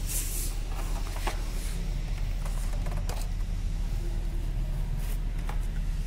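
Steady low workshop hum, with a few faint metallic clicks of engine parts and tools being handled.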